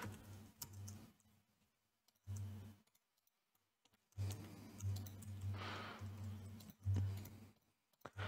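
Faint computer mouse clicks, scroll-wheel turns and keyboard taps picked up by a headset microphone, over a low hum that cuts in and out.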